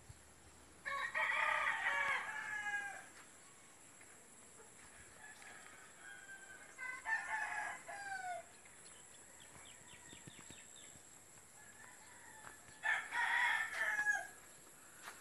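Rooster crowing three times, about a second in, around seven seconds in and near the end, each crow lasting one to two seconds and falling in pitch at its close. A faint steady high-pitched hum runs underneath.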